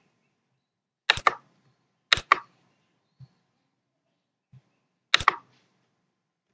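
Computer mouse and keyboard clicks: three sharp double clicks, about a second, two seconds and five seconds in, with a couple of faint low knocks between them.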